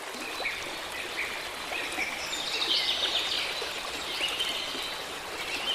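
Several small birds chirping and trilling over a steady rush of flowing water.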